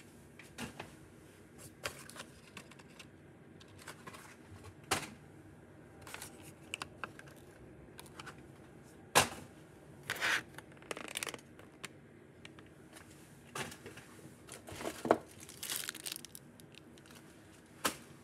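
Fidget toys being handled: scattered clicks and taps with short crinkling rustles at irregular intervals.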